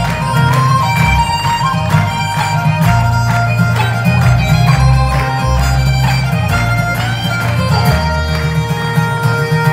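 Live traditional folk tune played on fiddle, acoustic guitar and a small wind instrument, with held melody notes over a strummed rhythm and strong bass through the venue's PA.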